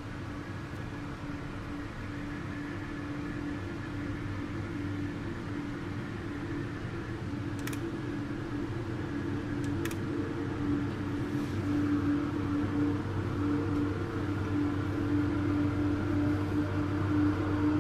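Diesel freight locomotive running and pulling its train, a steady droning hum that grows louder as it draws closer, heard through a window pane. Two brief clicks sound near the middle.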